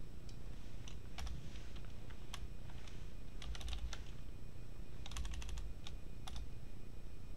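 Typing on a computer keyboard: irregular keystrokes in short bursts, with quick runs of keys around the middle and about five seconds in.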